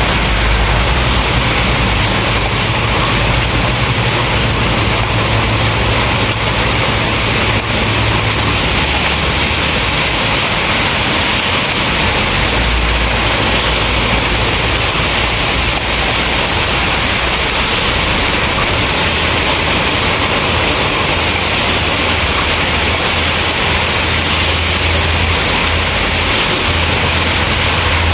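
Steady heavy rainfall, an even hiss of rain, with a low rumble rising and fading underneath at times.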